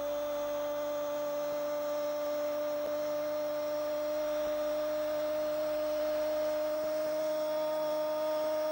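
A football commentator's drawn-out goal cry, 'gooool', a single vowel held on one steady pitch.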